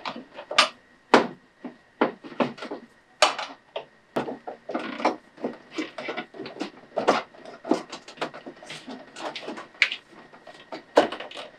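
Heavy winch power cables being handled and pushed into place in a Jeep's engine bay: irregular rustling, tapping and clicking as the cables rub and knock against the parts around them.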